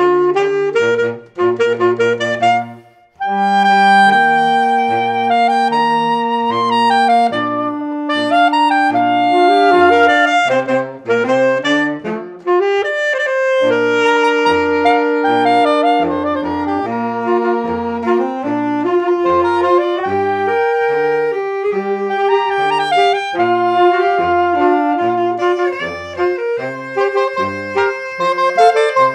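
Saxophone quartet playing a slow song in several parts: held melody and harmony notes over a low line of short, detached notes. All parts stop briefly about three seconds in, then carry on.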